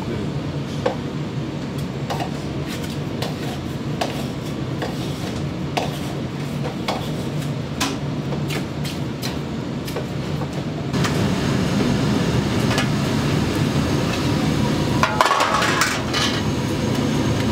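Kitchen clatter: light knocks about once a second over a steady low hum, growing busier and louder about eleven seconds in, with a burst of clattering near the end.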